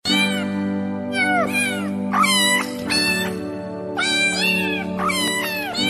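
A string of cat meows, one after another, each bending up and down in pitch, over background music with a steady held chord.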